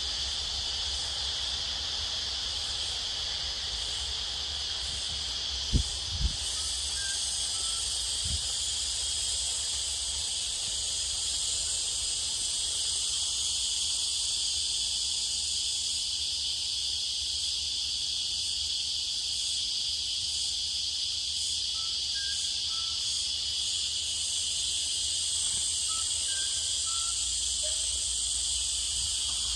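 Steady, high-pitched chorus of insects buzzing without a break. Two sharp knocks come about six seconds in and a fainter one a couple of seconds later.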